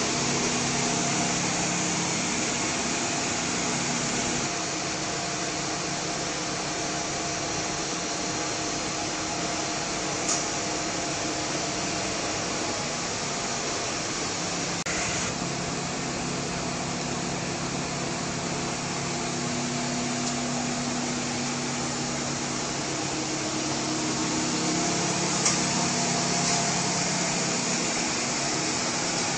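Steady whooshing machine noise, like a running blower, with faint low steady tones under it and two brief ticks, one about ten seconds in and one near twenty-five seconds.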